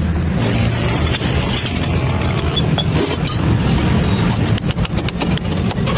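Motor vehicle engine running, with a rapid run of sharp clicks and knocks in the second half.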